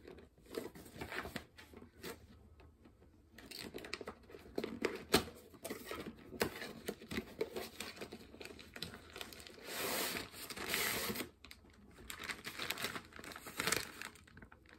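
Hands opening a cardboard box and pulling out its contents: irregular scraping, tearing and crinkling of cardboard and packaging, with a louder crinkling stretch about ten seconds in.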